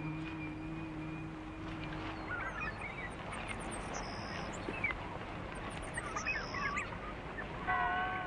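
Film soundtrack: held music notes fade out, leaving steady outdoor noise with birds chirping and calling in short bursts, twice. Music with held notes comes back in near the end.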